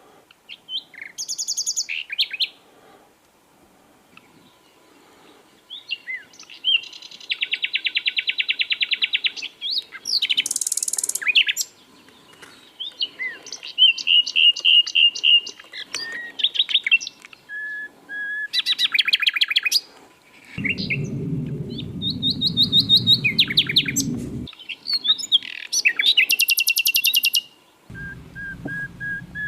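Sikatan londo flycatcher singing a varied, high-pitched song of fast buzzy trills, rapid repeated chirps and short whistles, broken by brief pauses. A low rumbling noise sits under the song twice: for about four seconds past the middle, and again near the end.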